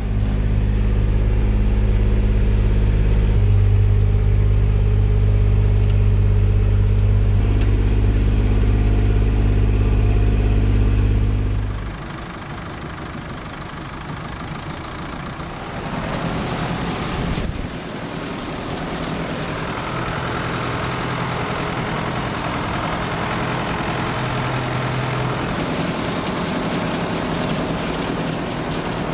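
Ford 7700 tractor's diesel engine running steadily. About twelve seconds in, the sound drops and gives way to a noisier, rougher mechanical running.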